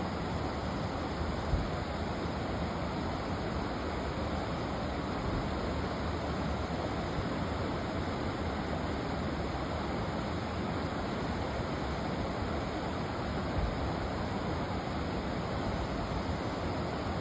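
Steady rush of a mountain creek's fast-flowing water, with a brief bump about one and a half seconds in.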